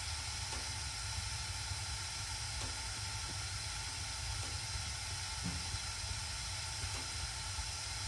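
Gas furnace burners firing steadily, an even low rumble and hiss of the blue gas flames. The furnace's circulating blower is not running, which the owner takes to mean the blower has quit.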